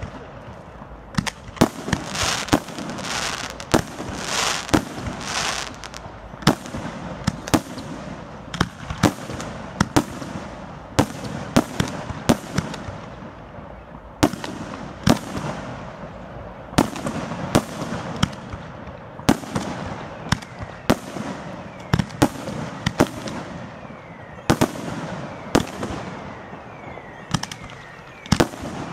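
Aerial firework shells bursting in quick succession, sharp bangs coming about one or two a second. A few seconds in there is a stretch of dense hissing crackle between the bangs.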